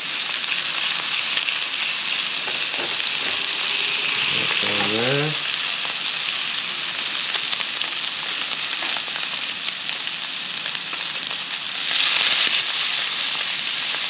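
Ribeye steak searing in beef tallow and butter in a hot cast iron skillet: a steady, loud fat sizzle. A brief rising squeak sounds about five seconds in, and the sizzle swells louder about twelve seconds in as more butter goes into the pan.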